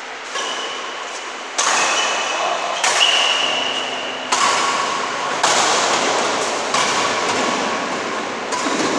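Badminton rackets striking a shuttlecock in a rally, about seven sharp hits roughly one every second and a half, each echoing in the hall.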